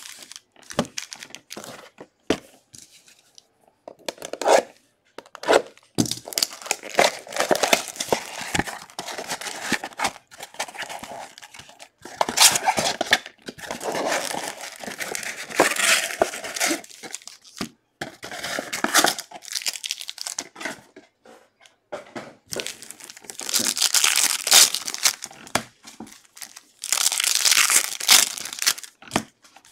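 Foil wrappers of 2023 Bowman baseball card packs being torn open and crinkled by hand, in irregular bursts of tearing and crackling with short pauses between them.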